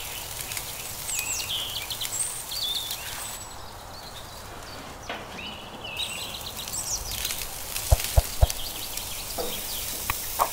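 Birds chirping and calling repeatedly over the steady low hiss of meat sizzling on a charcoal grill, with a few sharp clicks about eight seconds in.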